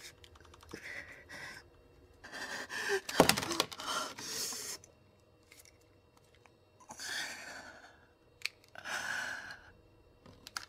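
A person's breathing: several breathy gasps and sighs, each under a second or so, with a sharp knock about three seconds in.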